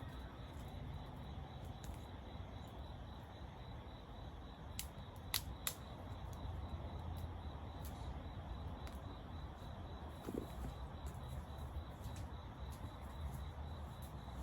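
Campfire burning with a steady low hiss and a few sharp crackling pops about five seconds in.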